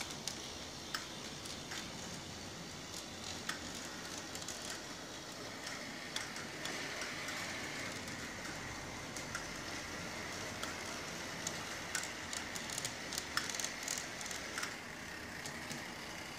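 Bachmann Peter Witt model streetcar running on layout track: the steady whirr of its small electric motor, with a faint whine that comes up about five seconds in and fades near the end. Scattered light clicks of the wheels running over rail joints and points, clustering about twelve seconds in.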